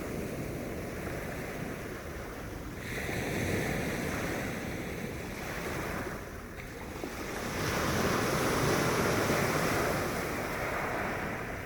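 Sea waves washing onto the shore in a steady rush, swelling twice, about three seconds in and again more strongly past the middle.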